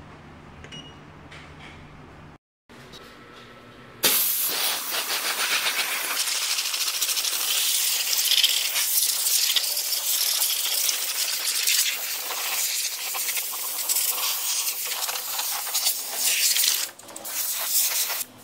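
Steam cleaner gun blasting dry steam over an engine bay: a loud, steady hiss that starts about four seconds in and breaks off briefly near the end.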